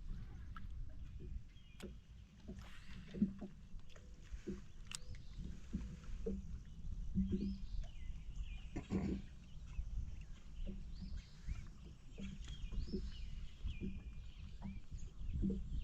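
Outdoor sound from a fishing kayak on the water: a low rumble, like wind on the microphone, under scattered knocks and thumps, with birds chirping throughout.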